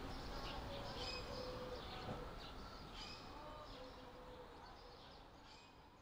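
Small birds chirping and twittering in short, quick calls over a soft background hiss, fading out gradually.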